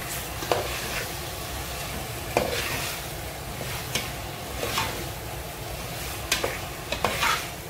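Chicken pieces sizzling as they sauté in a metal pot, stirred with a utensil that scrapes and knocks against the pot's sides and bottom about seven times at irregular moments, loudest near the end.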